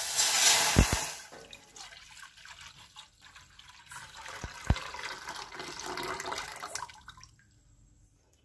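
Milk poured in a stream into a stainless steel pot, splashing loudly for the first second as it hits the empty pot, then a softer filling sound that swells again and stops about seven seconds in. A few short low bumps sound along with it.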